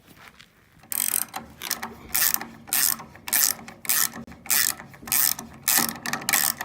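Ratchet wrench clicking in repeated strokes, about two a second, starting about a second in, as it cranks a nut down a threaded rod to draw a framed wall plumb.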